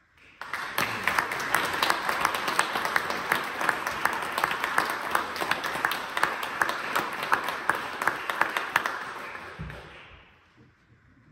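Concert audience applauding: many hands clapping, beginning abruptly in the first half second and dying away about ten seconds in.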